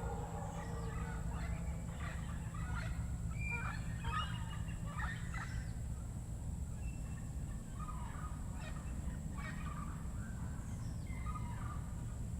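Rainforest birds calling in scattered bursts of quick, chattering notes, some sweeping down in pitch, over a steady thin high-pitched whine and a low rumble.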